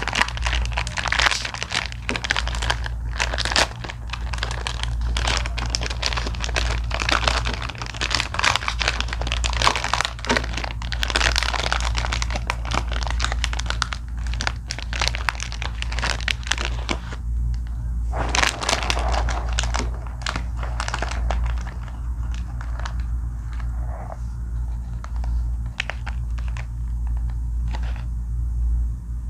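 Wrapper of an Ülker Halley chocolate snack crinkling and tearing as it is unpacked: a dense run of crackles for about the first seventeen seconds, then sparser rustles. A steady low hum runs underneath.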